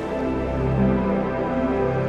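Soft background music: calm, ambient new-age style with sustained notes over a low bass.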